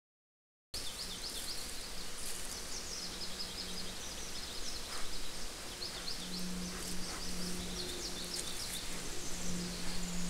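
Forest ambience through a trail camera's microphone: steady hiss, with a small songbird repeating short, high trills throughout and a low buzz that swells and fades. The sound starts suddenly less than a second in, after a moment of silence.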